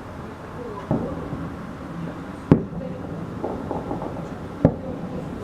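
Fireworks salute shells bursting: three sharp bangs about two seconds apart, the middle one the loudest, over steady background noise.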